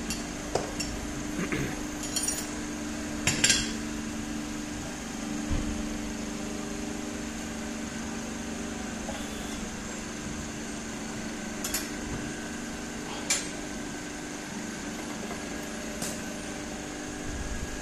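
Scattered metallic clinks and knocks of steel hooks and iron test weights being unhooked from and hung on a dial hanging scale, the loudest about three and a half seconds in, over a steady low hum.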